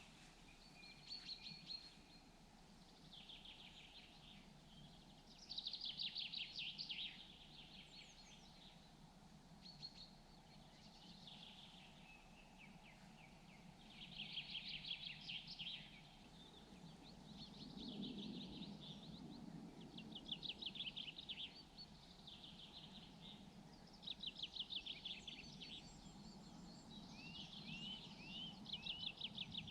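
Small songbirds singing: short, fast trilled phrases, one every couple of seconds, over a faint steady low rumble that swells briefly about eighteen seconds in.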